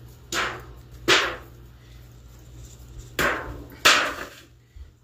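Hands working dry barbecue rub onto a raw brisket on a wooden cutting board: four short, sharp swishing strokes in two pairs, the first pair early and the second about three seconds in.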